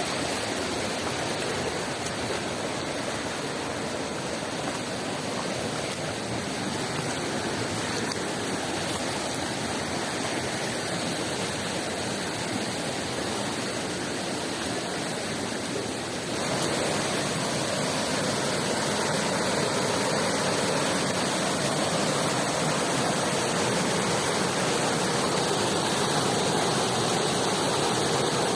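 Rushing water of a mountain stream, a steady rush that becomes a little louder a little past halfway through.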